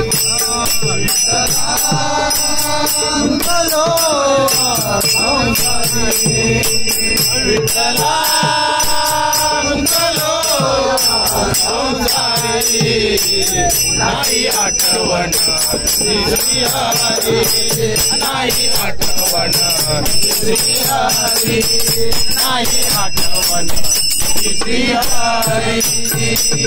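Marathi devotional bhajan (an abhang to Vitthal) sung by a group of voices, with small hand cymbals ringing and jingling steadily on the beat. Sung phrases rise and fall around two seconds in and again near eight seconds.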